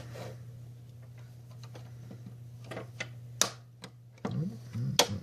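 Plastic snap-fit clips of a smart plug's moulded case clicking as the case is pried apart: a handful of sharp separate clicks, the loudest near the end as the case pops open.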